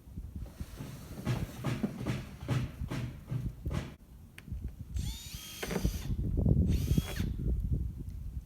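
Cordless power drill driving screws while a sheet-metal roof goes on: a run of uneven knocks and rasps, then two short spells of motor whirring that glide in pitch, the second the loudest.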